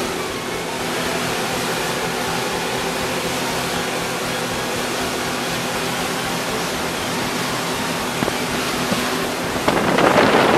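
Passenger speedboat under way: its engines run steadily under the rush of water and wind past the boat. The rushing noise swells louder about a second before the end.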